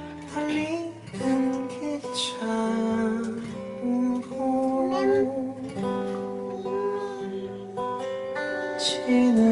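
A man singing a slow song, accompanying himself on an acoustic guitar.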